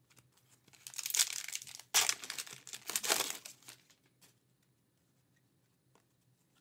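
Foil wrapper of a trading-card pack being torn open and crinkled: about three seconds of crackling rustle, sharpest about two seconds in, then only faint handling of the cards.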